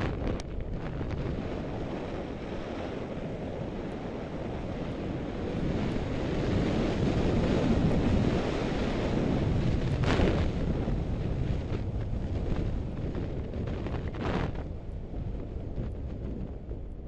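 Wind buffeting the microphone of a goggle-strap-mounted Contour GPS action camera during a ski run down packed snow, a steady rush that grows louder through the middle, with the skis hissing on the groomed snow and two short scrapes in the second half.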